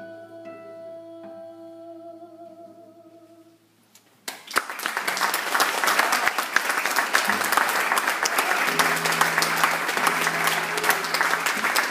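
The last note of a classical guitar and a singer's voice fades out, a brief hush follows, and about four seconds in the audience breaks into steady applause.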